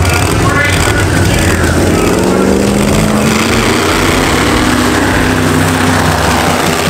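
Monster truck engines running and revving hard, the engine note climbing and then falling over a steady low rumble.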